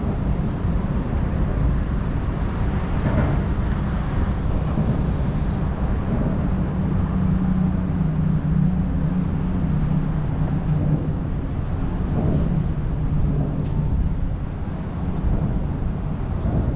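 City street traffic: a steady rumble of passing vehicles, with an engine hum that swells in the middle and fades again.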